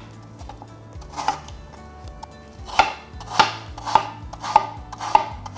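Chef's knife chopping an apple into small pieces on a cutting board: one cut about a second in, then five evenly spaced strokes a little under two a second.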